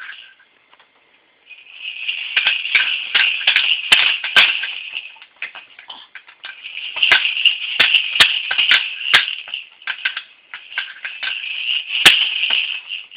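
A baby's handheld rattle toy being shaken hard in long spells, a dense rattling with sharp clicks and knocks, with brief pauses about five and a half and ten seconds in.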